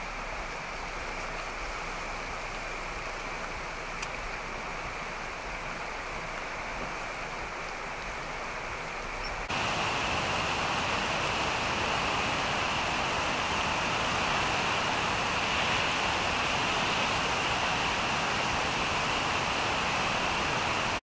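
Tule River in flash flood, its floodwater rushing in a steady, even noise. It steps up suddenly and stays louder about nine and a half seconds in.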